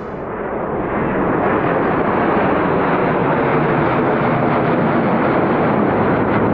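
Jet noise from a formation of four Lockheed F-16C fighters passing overhead. It is a loud, dense rumble that builds over the first couple of seconds and then holds steady.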